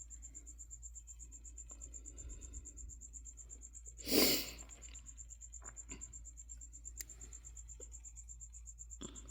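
Cricket chirping in a steady, rapidly pulsing high trill. About four seconds in a short, loud rustle cuts across it, and there is a faint click near seven seconds.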